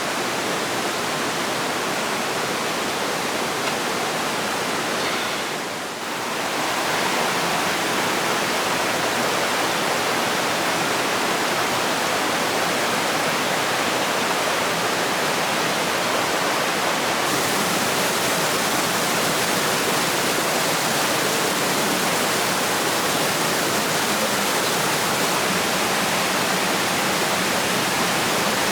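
Steady rush of flowing water, as from a stream or waterfall, with a brief dip about six seconds in.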